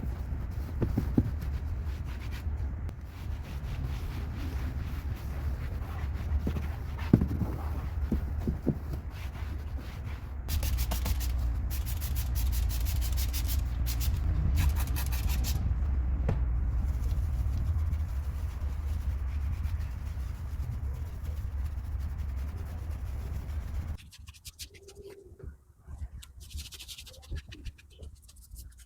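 Hand scrubbing on car interior surfaces: rapid, scratchy rubbing strokes over a steady low rumble. The rumble stops about three-quarters of the way through, leaving quieter, intermittent strokes.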